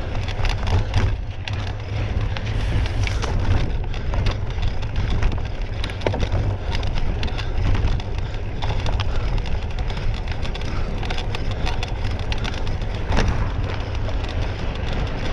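Wind rumbling and buffeting on the microphone, with steady rattling and clicking over it.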